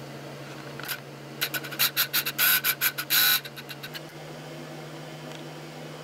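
A rapid run of sharp, bright clicks and rattles lasting about two seconds, starting just over a second in, over a steady low hum.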